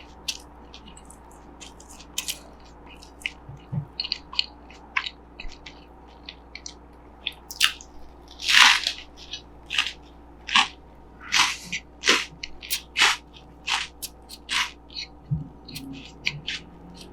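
A person biting and chewing crunchy Cheetos corn puffs in a hamburger bun: a run of sharp, irregular crunches, loudest about halfway through.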